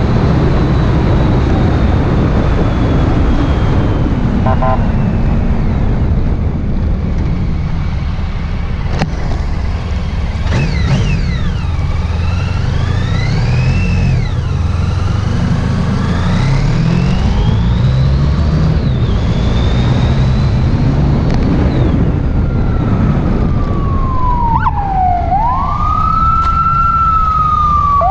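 Motorcycle engine running under steady wind rush, with sirens wailing over it: rising and falling tones from about ten seconds in, and a loud siren sweep down and back up near the end.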